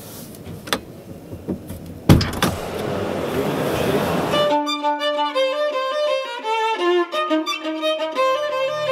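Quiet hall background with a few sharp clicks, then a sudden loud hit about two seconds in and a swell of noise. From about halfway, background music starts: a bowed-string melody of clear held notes.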